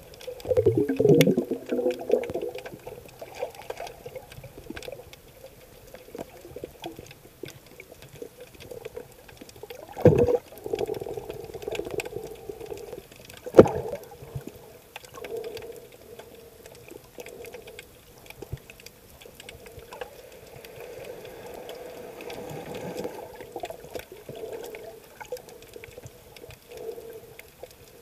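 Sea water swishing and gurgling as heard underwater through a camera, muffled, with surges about a second in and at about ten seconds, a sharp knock at about fourteen seconds, and a softer swell a little past twenty seconds.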